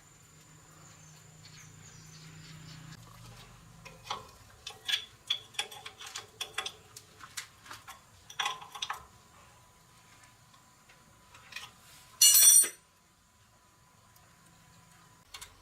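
Small metal parts and tools clinking and tapping on a workbench during starter-motor repair, in scattered clicks. Near the end comes a single loud, rasping burst of noise lasting about half a second.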